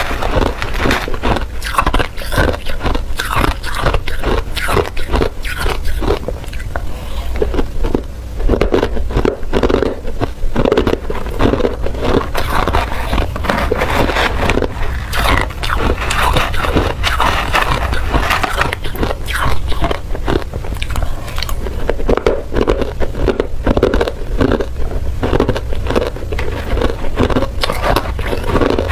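Hard ice being bitten and chewed, a steady run of sharp crunching and cracking, with a metal spoon scraping among the ice chunks in a plastic tub.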